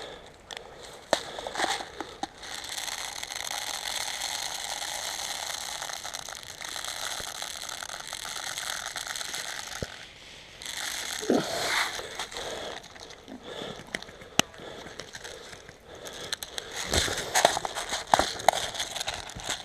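Rapid ratchet-like mechanical clicking that runs steadily for several seconds and stops about ten seconds in, followed by scattered sharp clicks and rustles.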